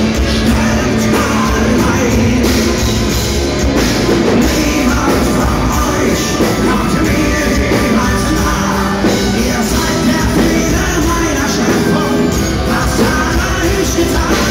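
A German folk-metal band playing live through a PA with distorted electric guitars, bass, drums and singing, heard from among the crowd.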